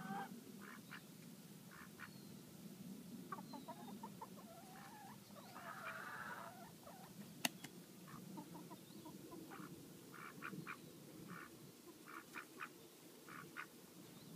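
Barnyard fowl calling faintly in short, repeated clucks and squawks, busiest about six seconds in, with one sharp click about seven and a half seconds in.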